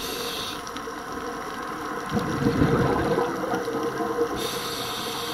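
Underwater sound of a scuba diver's breathing through the regulator: a hiss of inhalation near the end, and a burst of exhaled bubbles gurgling about two seconds in, the loudest part.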